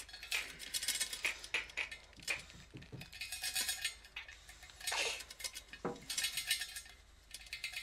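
Light metallic clinks and rattles at irregular moments, with a few brief low breathy sounds in between.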